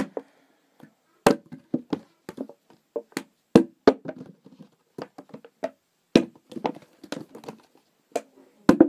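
A plastic bottle being flipped again and again, landing with a sharp knock about every two and a half seconds, with lighter knocks and handling clatter in between.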